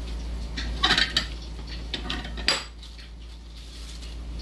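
Kitchen utensils clinking and knocking against cookware: a quick cluster of clinks about a second in and a louder single knock past the halfway point, over a steady low hum.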